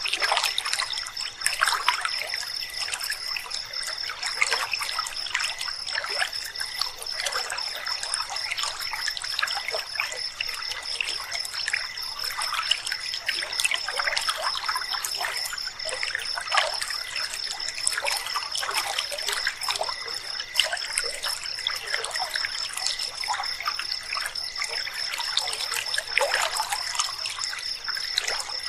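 River water trickling and babbling, with a steady high-pitched trill of night insects running through it.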